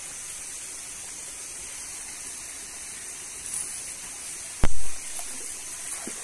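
Steady hiss of a shallow forest stream, with one loud thump about four and a half seconds in and a smaller bump a second before it.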